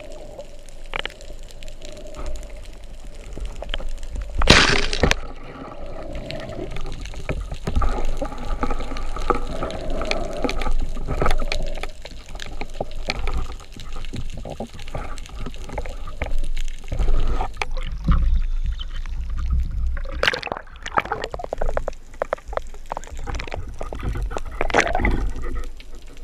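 Underwater water noise with gurgling, heard from below the surface. Two brief, louder noisy bursts stand out, one about four and a half seconds in and one about twenty seconds in.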